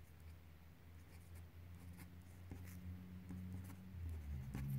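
Fine-tip pen writing Chinese characters on paper: faint scratching of the short pen strokes, over a low hum that grows louder near the end.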